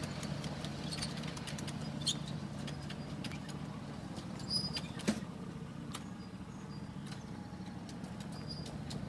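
Ride-on 1.5-inch scale model freight train rolling away along the track, its wheels clicking over the rail joints, with a steady low hum underneath.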